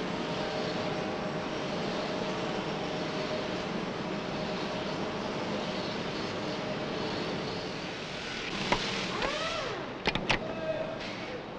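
Steady roar of factory machinery in a truck-engine plant, with a faint hum. A few sharp metallic clicks come about ten seconds in, as a cylinder liner goes into an engine block.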